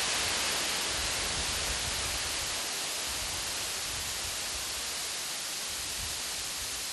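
Steady rush of a high waterfall's falling water, an even hiss with an uneven low rumble beneath it, easing off slightly over the seconds.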